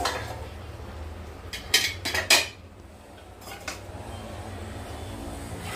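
Stainless-steel plates clinking and clattering as they are handled: a quick run of sharp clinks about a second and a half in, then a couple of lighter ones.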